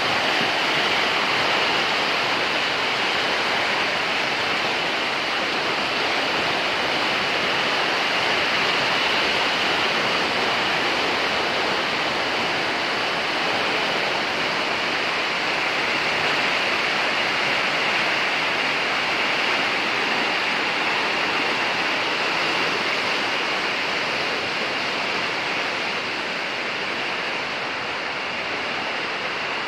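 Swollen river in flood, fast muddy water rushing in a steady, loud rush, a little quieter near the end.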